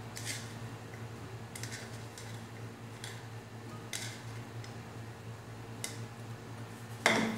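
Faint scattered clicks and light knocks of kitchen items being handled over a steady low hum, with one louder clatter just before the end.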